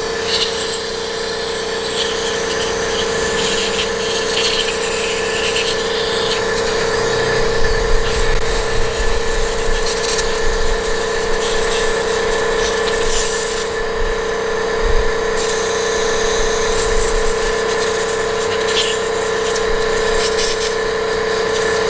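Spray nozzle hissing as cleaner is blasted through a carburetor body, the hiss swelling in short spurts several times over a steady hum.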